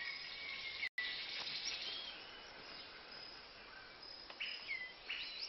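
Rainforest ambience: a steady hiss of insects with several short whistled bird calls that rise and fall, more of them near the end. The sound cuts out for an instant about a second in.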